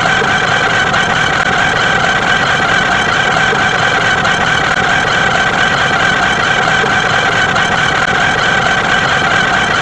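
A loud, steady, engine-like drone with a buzzing tone, unchanging throughout.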